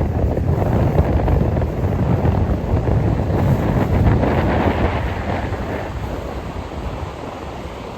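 Stormy sea: surf breaking and washing, with strong wind buffeting the microphone. A wave swells up around the middle and eases off toward the end.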